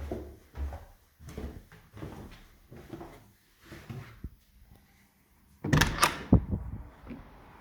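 A door being handled: a run of soft thumps about every half second, then a loud clatter of sharp knocks about three quarters of the way in.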